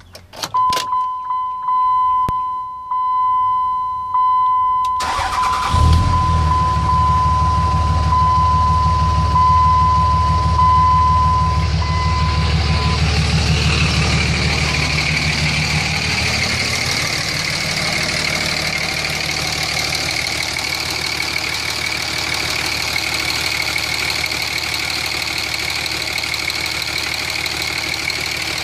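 A steady electronic tone sounds from the start to about 13 s. About five seconds in, a Cummins diesel engine cranks and catches on its first start after new injectors were fitted, then settles into a steady diesel idle.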